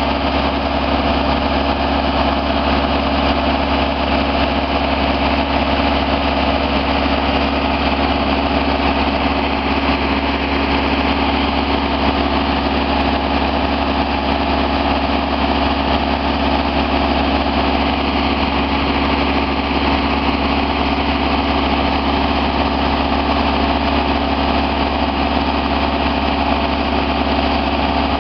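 Diesel engine of a Genie boom lift idling steadily.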